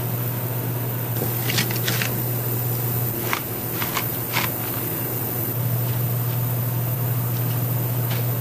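Steady low hum of a fan or motor, with about five short, sharp clinks in the first half.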